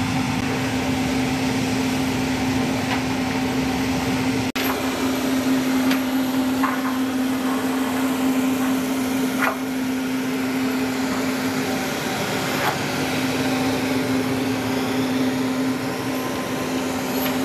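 Steady running drone of a US Navy LCAC hovercraft's gas turbines and fans, a held hum over a rushing whoosh, with a few faint knocks.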